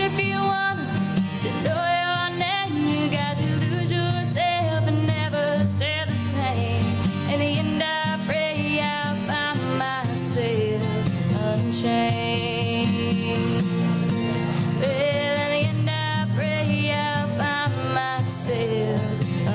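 A woman singing into a microphone, accompanying herself on a strummed acoustic guitar.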